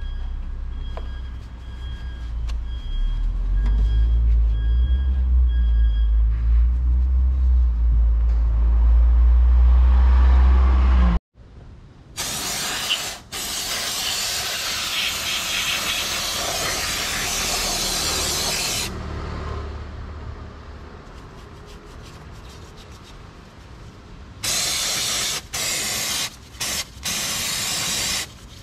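A loud low rumble with a repeated beep through the first few seconds. After an abrupt cut comes a long spraying hiss of about seven seconds, and near the end several short spray bursts with pauses between them.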